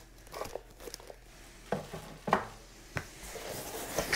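Plastic bag crinkling and foam packing being handled in a cardboard box, with three sharp knocks about two-thirds of a second apart near the middle.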